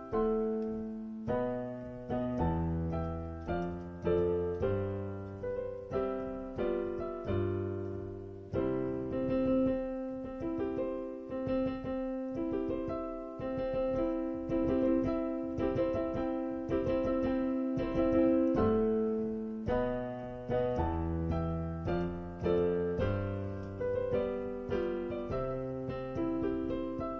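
Solo piano playing a march: a melody over struck chords, each note fading after it is played, at a steady pace.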